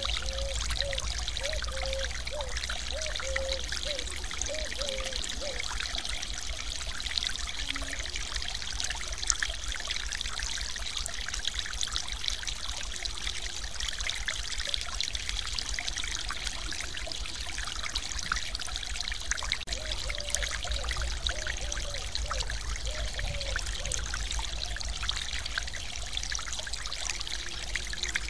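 Stream water pouring over a low weir: a steady, unbroken rush and splash of falling water.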